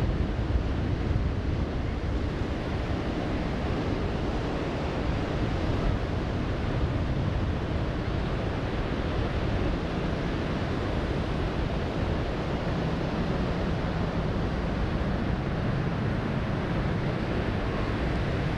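Steady rushing noise of wind buffeting the microphone over ocean surf, with no distinct events.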